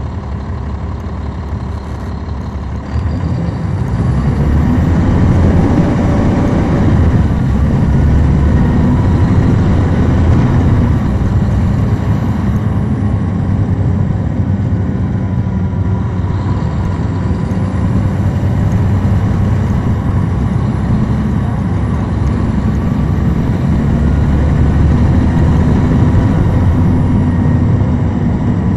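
Caterpillar C13 ACERT diesel engine of a NABI 416.15 transit bus, heard from the rear of the bus. It gets louder about three seconds in as the bus picks up speed, then runs loud and steady under load.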